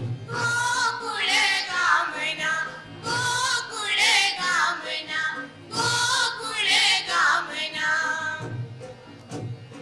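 Music with singing: a voice sings a melodic phrase that comes round again about every three seconds, growing quieter near the end.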